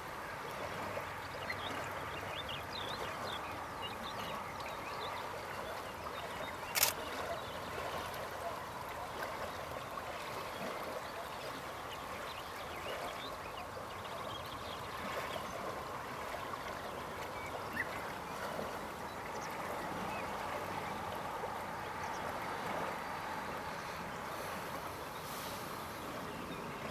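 Outdoor ambience: a dense, steady chorus of distant animal calls, with a single sharp click about seven seconds in.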